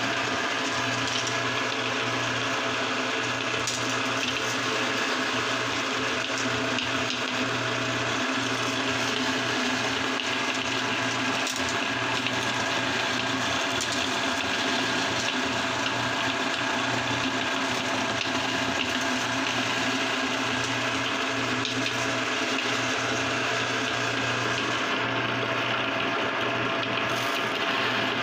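Motor-driven aluminium meat grinder running steadily, its auger crunching hard mango candies into crumbs, over a constant motor hum.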